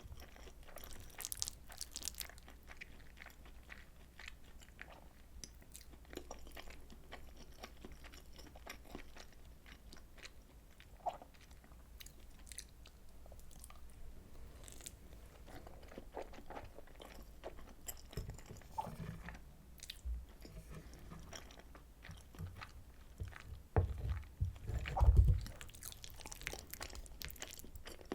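Close-miked eating sounds of soy sauce butter egg rice: soft wet chewing with small mouth clicks and smacks. A few louder low thuds come near the end.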